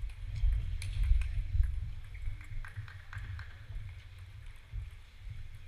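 Table tennis ball clicking off bats and table in the last shots of a rally. A few seconds in it comes several more times in quickening succession, like a ball bouncing to rest.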